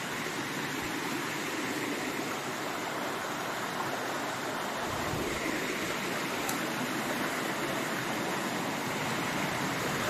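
Waterfall cascades rushing steadily, an even hiss of falling water with no break.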